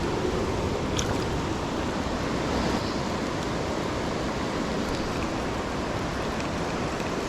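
Steady rush of creek water flowing, with a faint click about a second in.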